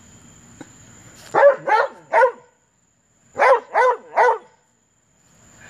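Dog barking in two quick sets of three short barks, frustrated over a bone it is after.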